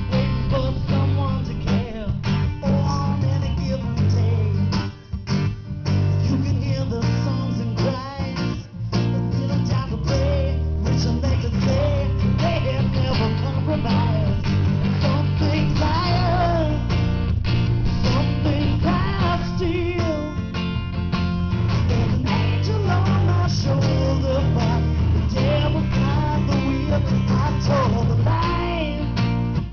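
Live blues-rock band playing an instrumental passage of the song, guitar to the fore over strummed guitar and bass, with two short stops a few seconds in.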